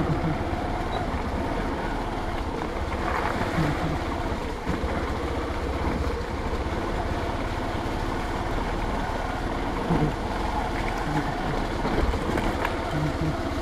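Motorcycle engine running steadily as the bike rides along, with wind rushing over the microphone.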